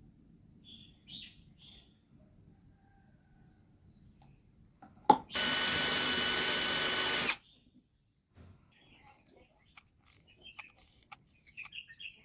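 A small power tool runs for about two seconds with a steady whine, starting after a click about five seconds in and cutting off sharply. Faint bird chirps come before and after it.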